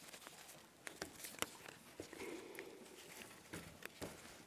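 Faint, scattered clicks and taps of hands and a small tool working on an electric ATV winch, with a sharper click about a second and a half in and a soft rustle a little after two seconds.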